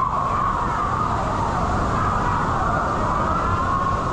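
Motorcycle engine running steadily under way, its pitch wavering slightly as the revs shift, with wind rushing over the camera microphone.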